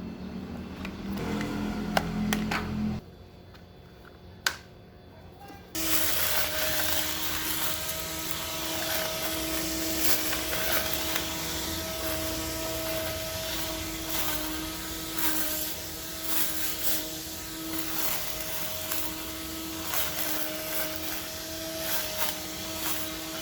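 Cordless grass trimmer's replacement electric motor switching on about six seconds in and running steadily: a whirring hiss with a steady whine over it. Before it come a few seconds of low shifting tones and a single click.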